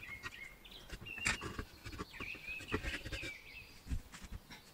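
Metal parts of a camping stove clicking and tapping as they are handled and fitted together, with several short, high, squeaky chirps.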